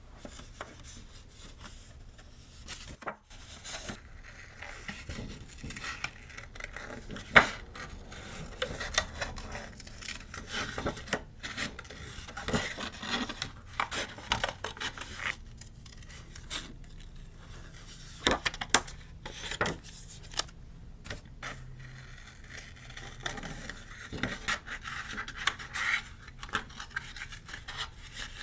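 Paper and craft materials being handled on a journal page: rubbing and scraping, broken by scattered sharp taps and clicks.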